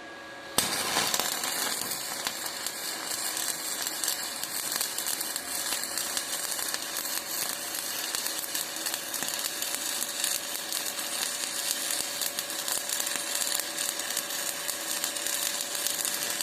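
Stick (shielded metal arc) welding with an E7018 electrode: the arc strikes with a sharp crack about half a second in, then crackles and sizzles steadily as a weld pass is run.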